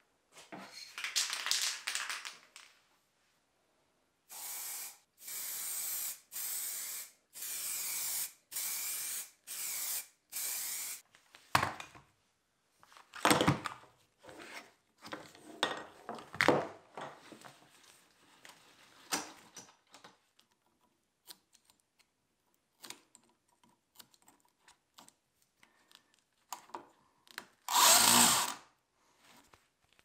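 Power drill run in about six short, even bursts, each under a second, followed by scattered clicks, knocks and rattles of metal parts being handled, and one louder burst of noise near the end.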